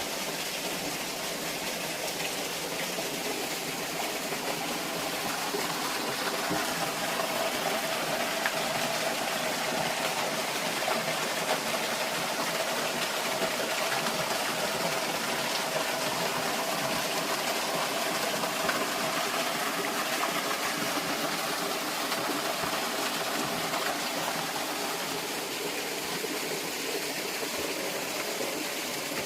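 Steady rush of running stream water along a woodland trail, with a faint steady hum underneath that is strongest in the middle.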